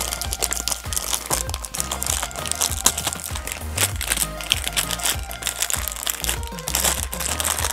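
Plastic wrapping crinkling and crackling in irregular handfuls as an LOL Surprise doll is unwrapped, over background music with a steady bass line.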